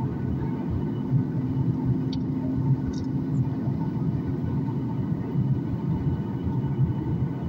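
Cabin noise inside a Boeing 737 MAX 9 on its landing approach: a steady low rumble of airflow and its CFM LEAP-1B turbofan engines, with a faint steady hum under it.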